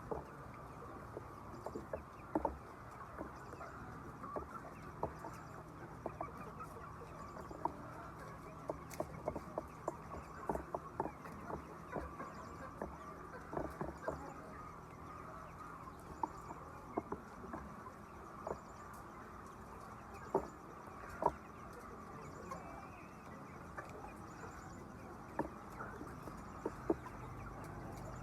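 A flock of laying hens clucking, with frequent short sharp clicks scattered irregularly throughout.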